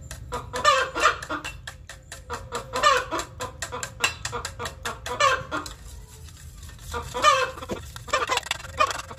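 Hens clucking repeatedly, short loud calls every second or two, over the rapid clicking of a hand whisk's wires against a steel bowl as cake batter is beaten.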